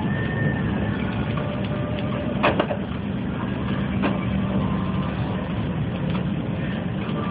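City bus running downhill, heard from inside the cabin: a steady engine drone with a low hum, broken by a sharp double clatter about two and a half seconds in and a lighter knock a second and a half later.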